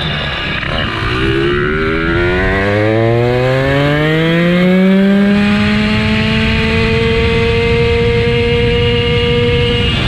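RDM Piaggio 79cc engine on a motorized bicycle accelerating. Its note climbs over about four seconds from low revs, then holds steady at cruising speed, and drops just at the end.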